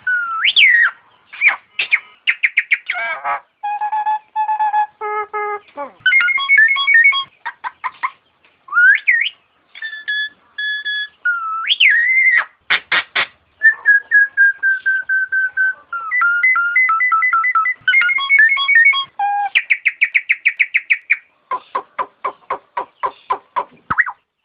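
Nias hill myna calling: a varied string of loud whistled notes, some held steady, some gliding up or down, mixed with sharp clicks. A quick series of clicks, about four a second, comes near the end.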